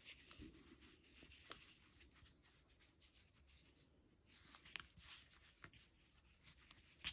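Near silence, with faint rubbing and a few soft ticks as a cotton-yarn crochet piece is turned over and handled on the hook.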